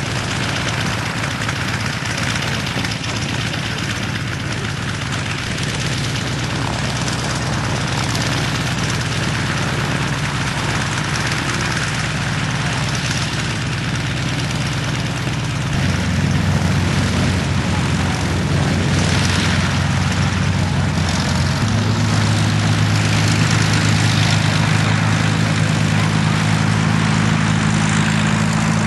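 Second World War fighter's piston aero engine running on the ground with its propeller turning, a steady drone whose pitch steps up twice, a little past halfway and again a few seconds later, as the engine is opened up.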